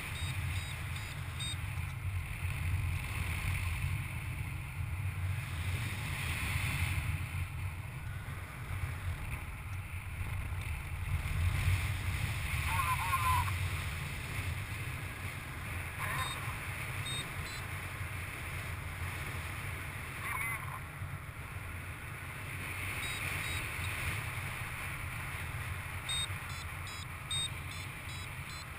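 Rushing wind buffeting the microphone of a paraglider in flight, a steady low rumble. A variometer beeps in short runs of quick, high beeps near the start and again toward the end, signalling climb in a thermal.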